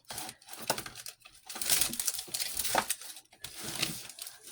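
Small objects being handled and rummaged through in a desk drawer: rustling and crinkling with several sharp clicks and knocks.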